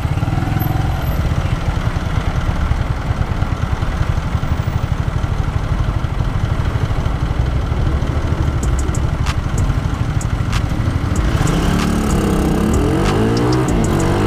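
Motorcycle engine and exhaust running steadily while riding. In the last few seconds the engine's pitch climbs and drops repeatedly as the throttle is opened and closed.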